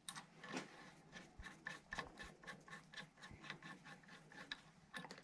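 Faint, irregular small metal clicks and light scraping as a bolt and spring washer are fitted by hand into a radius rod's axle collar.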